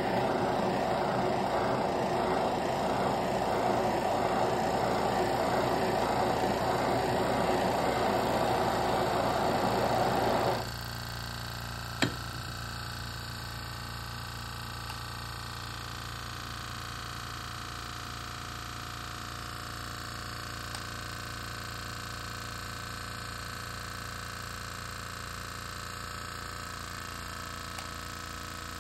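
Handheld gas blowtorch burning steadily with a loud hiss, shut off suddenly about ten seconds in. A single click follows, then a fainter steady hum.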